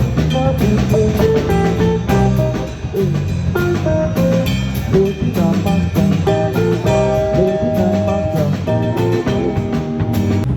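A live band playing an instrumental passage: a lead guitar melody over drum kit and bass, with no singing.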